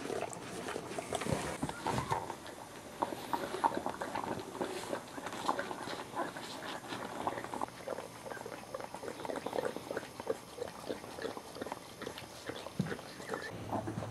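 Young Boxer puppies moving about and sniffing on a carpet mat: a scatter of small, irregular clicks and soft noises, with no clear bark or whine.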